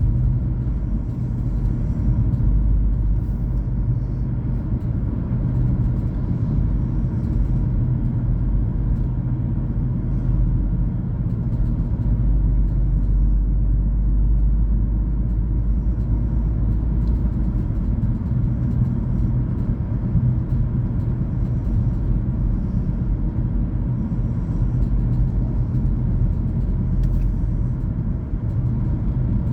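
Car driving along at a steady speed: an even, low road-and-engine rumble.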